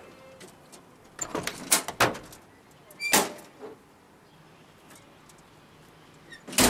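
A military jeep's door being handled as the driver gets out: latch clicks and knocks in the first two seconds, a loud knock about three seconds in, and a loud bang near the end.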